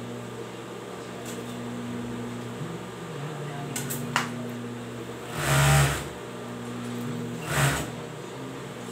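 Industrial overlock machine stitching fabric in two short bursts, about halfway through and near the end, over a steady hum, with a sharp click about four seconds in.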